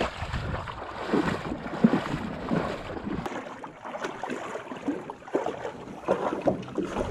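Irregular splashing and sloshing of a person wading quickly through shallow river water, with a low rumble that drops away about three seconds in.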